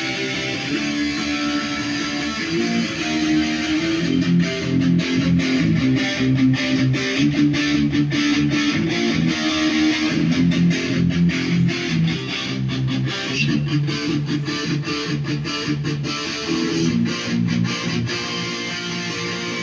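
Jay Turser JT-50 Custom SG electric guitar played through an amplifier: chords ringing at first, then fast, even strumming from about four seconds in that runs on almost to the end.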